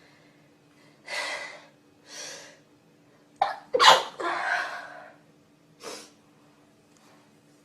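A person sneezing: two quick breaths in, then one loud sneeze about four seconds in, followed by a short breath.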